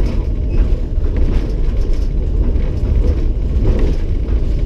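Steady low rumble inside the cab of an EP20 electric locomotive running along the track: wheels on rail and running gear, with a few faint clicks.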